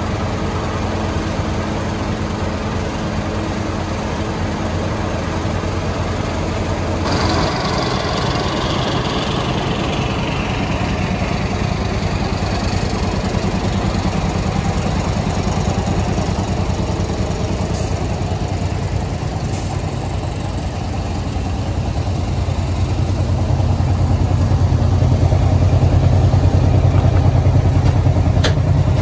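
GE diesel switcher locomotive idling with a steady low drone. About seven seconds in a burst of hissing starts and fades, dropping in pitch over several seconds, and near the end the engine drone grows louder and fuller.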